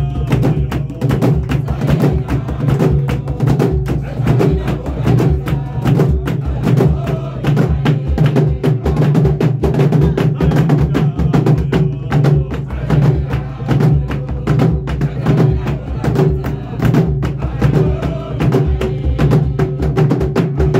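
Drums beaten by hand in a fast, steady rhythm, with a group of voices singing along.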